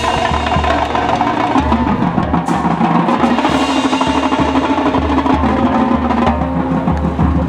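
High school marching band playing a percussion-heavy passage: drums and mallet percussion struck over sustained wind chords, with regular low drum pulses.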